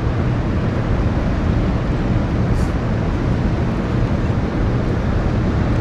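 Steady low rumble and hiss of wind blowing across the microphone.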